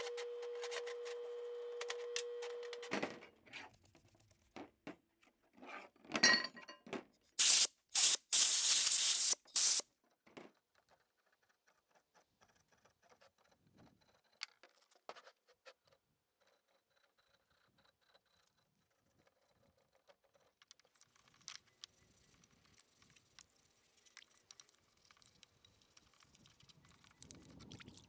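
Parts-washer pump running with a steady hum while a brush scrubs a rusty floor-jack part under the solvent stream, stopping about three seconds in. Then comes a string of scattered clicks and several loud hissing bursts, the longest over a second, followed by faint scraping and clinking of metal parts.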